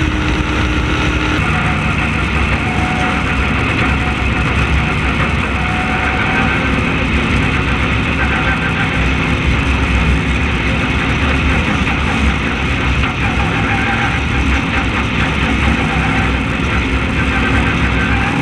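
Onboard sound of an open-wheel race car's engine running steadily at a fairly even throttle, with no big revving.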